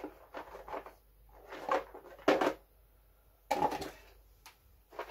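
Rummaging among small objects: a series of short clattering knocks and rustles, the loudest a little after two seconds in.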